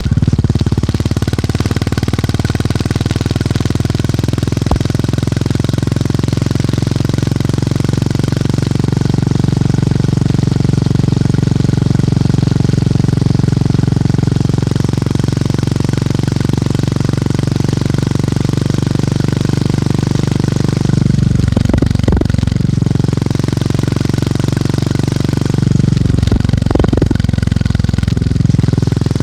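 Motorcycle engine and exhaust thumping steadily while riding, a fast even pulse. Twice near the end the revs dip and pick up again.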